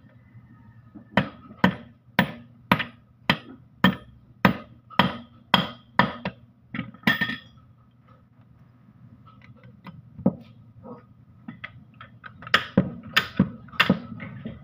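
Metal-on-metal hammer blows on a Mitsubishi Canter gearbox housing during disassembly: about a dozen sharp strikes, about two a second, then a few light taps and a second run of blows near the end.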